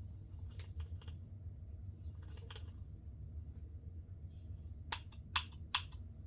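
Small clicks and light rattles from handling a vintage Pflueger Supreme baitcasting reel, with three sharp clicks close together near the end, over a low steady hum.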